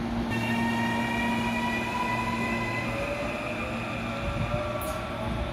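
Electric commuter train pulling out of the station, its traction motors whining in several tones that slowly rise in pitch as it gathers speed, over a steady low hum. A brief hiss near the end.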